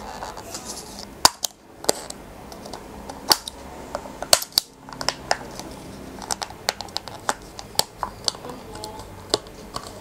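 Snap-on clear plastic lid of a plastic dessert cup being prised open by the fingers: a run of sharp, irregular plastic clicks and crackles.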